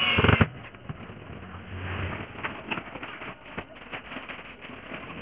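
Cordless drill driving a screw into a wooden crate slat, cutting off about half a second in. Then quieter handling noise with a few light clicks as tools and screws are picked over.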